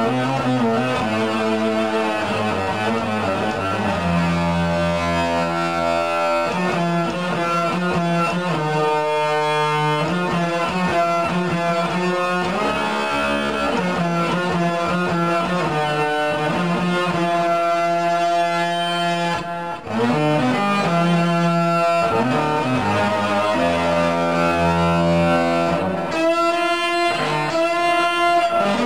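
Electric guitar played with the fingers, without a plectrum, in a fast oriental-style solo of held notes and pitch bends. The playing breaks off briefly about twenty seconds in, then resumes.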